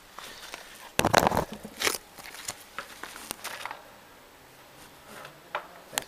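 Handling noise from a camera being carried and set down on the ground: a loud rustle about a second in, then scattered clicks, crackles and knocks, and a couple of sharp knocks near the end.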